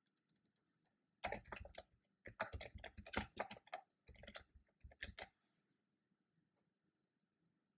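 Typing on a computer keyboard: rapid key clicks in four short runs, starting about a second in and stopping a little after five seconds.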